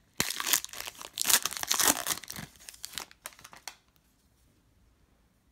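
Foil trading card pack being torn open and its wrapper crinkled, a dense crackling with many sharp snaps that stops about four seconds in.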